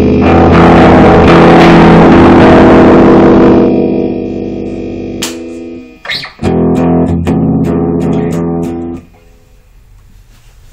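Guitar played loud: a sustained chord ringing for several seconds, a few sharp strums about five to six seconds in, then another held chord that cuts off suddenly about nine seconds in.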